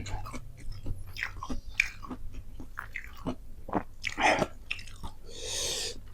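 Close-up chewing and biting of a mouthful of nasi padang, with irregular wet clicks and crunches. A short rush of breath-like noise comes about five seconds in.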